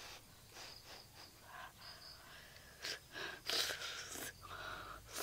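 A person blowing on a hot spoonful of fish soup, then taking it into the mouth: a series of short breathy puffs and mouth noises, the loudest a little after three seconds in.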